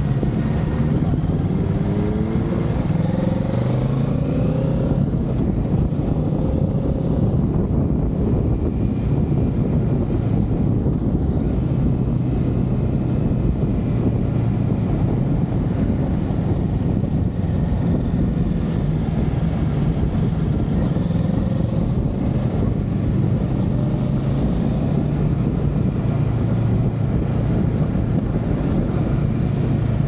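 Kawasaki Z650's parallel-twin engine running under way, rising in pitch over the first few seconds as the bike accelerates, then holding a steady note, with heavy wind rush on the microphone.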